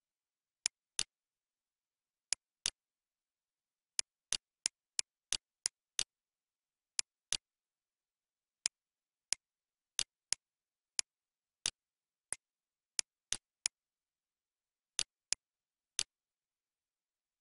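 Computer mouse clicks, about two dozen short sharp clicks, several in quick pairs and runs, with dead silence between.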